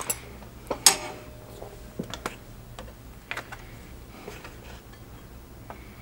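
Scattered light clicks and taps of small hand tools and a thin silver strip being handled at a jeweler's bench pin as the saw is set up, with one sharper click about a second in.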